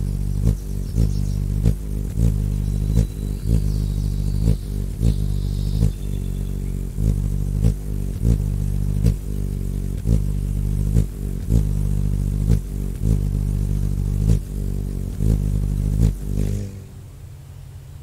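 Hummingbird wing hum: a steady low buzz with sharp clicks about twice a second, and a few faint high chirps a few seconds in. The hum stops shortly before the end, leaving a quieter low rumble.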